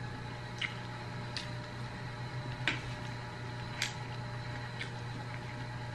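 Faint eating sounds: about five small sharp clicks, roughly one a second, as fried-stewed fish is picked apart by hand and chewed, over a steady low hum.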